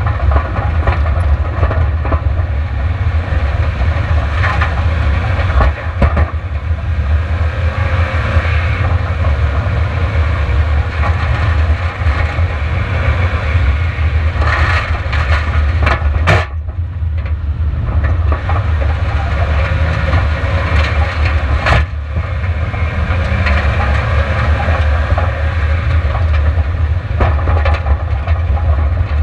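Onboard sound of a long-travel Subaru Outback driven fast over a rough gravel track: a steady low rumble of engine, tyres and wind with a rattling clatter over the stones, and three sharp knocks from the suspension or body hitting bumps.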